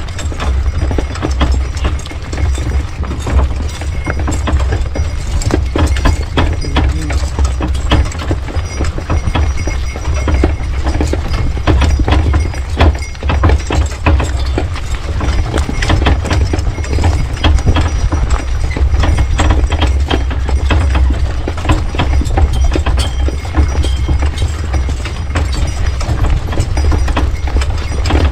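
Hooves of a driven pair of horses clip-clopping steadily, many irregular hoof strikes throughout, over a steady low rumble.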